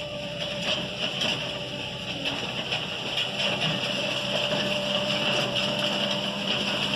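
Diesel engine of a JCB compact telescopic loader running under load as it pushes a grader attachment through loose soil, with a steady whine over the engine note. It grows gradually louder as the machine approaches.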